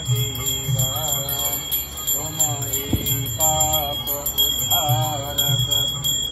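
A hand bell rung rapidly and without pause, as in temple worship, with voices singing over it and a low pulsing beat underneath.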